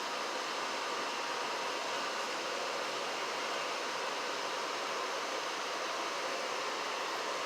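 Janitrol furnace running, a steady even rush of air and burner noise with a faint steady whine.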